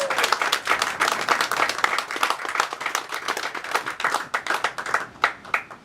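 Audience applauding, dense clapping that thins to a few scattered claps and stops near the end.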